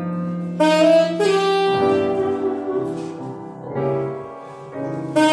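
Tenor saxophone playing a jazz melody in long held notes over sustained piano chords. The saxophone comes in about half a second in.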